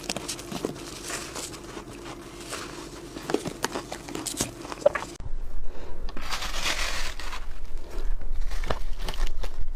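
Close-up bites into soft freezer frost and shaved ice, crunching and crackling. Quiet at first over a faint steady hum, then louder and denser crunches from about five seconds in.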